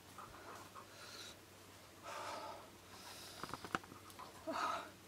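A few short breathy huffs and sniffs over about five seconds, with a quick run of sharp clicks a little past the middle.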